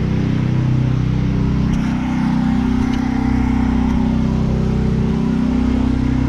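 Petrol engine of a pressure washer running steadily, its pitch drifting slightly up and down.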